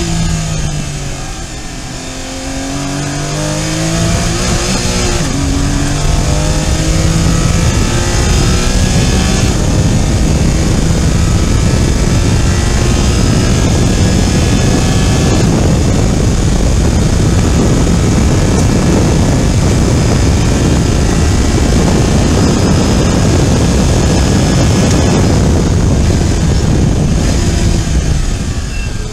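Porsche Cayman GT4 Clubsport's naturally aspirated flat-six, heard from inside the cabin at full throttle. Its pitch climbs and drops back with each quick upshift over the first ten seconds. It then holds high revs, around 7,000 rpm, for a long stretch and eases off under braking near the end.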